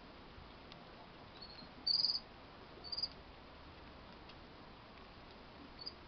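Cockatiels chirping: a few short high chirps, the loudest about two seconds in, another about a second later and a faint one near the end, over a steady faint hiss.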